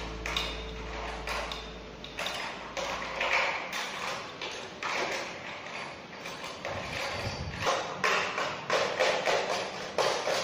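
Irregular light clicks, taps and rattles of small objects being handled. The tail of the preceding music fades out in the first few seconds.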